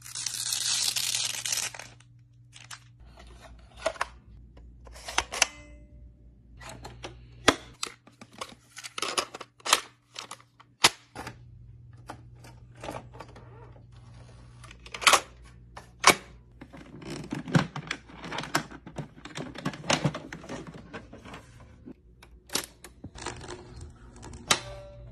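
The plastic sheet of a Magic Slate peeled up off its waxed board with a loud crackling rasp for about two seconds. It is followed by a long run of separate clicks and clunks as a video cassette is pushed into a Sony tape deck and other old gear is handled.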